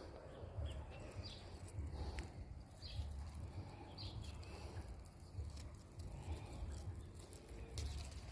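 Small birds chirping, short calls repeating every second or so, over gusty wind rumbling on the microphone.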